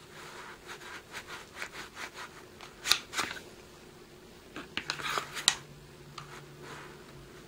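Taurus PT640 Pro pistol being pushed and rocked in a polymer paddle holster: a string of small clicks, scrapes and rubs of plastic on plastic, with sharper clicks about three seconds in and again about five and a half seconds in.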